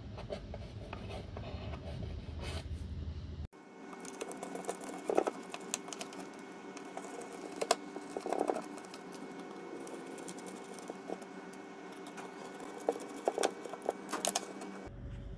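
Screwdriver working the screws out of an old steel box lock on a wooden toolbox lid: scattered small, sharp metal clicks and taps over a faint steady hum.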